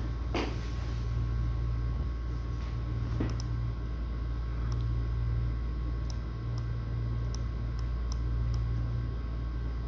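Steady low hum with a few faint, sharp ticks and two brief soft rustles.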